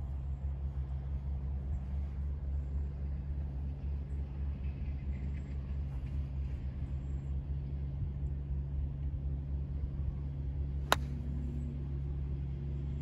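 Golf club striking a ball off a driving-range mat once, a single sharp crack about eleven seconds in, over a steady low rumble.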